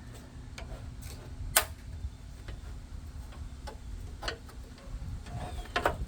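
Scattered sharp clicks and taps of hand tools on metal, irregularly spaced, the loudest about a second and a half in, over a low steady hum.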